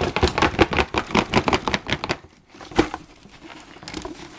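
Cardboard box and its inner tray being handled and slid apart: a quick flurry of rustles, scrapes and taps for about two seconds, then a single knock and quieter shuffling.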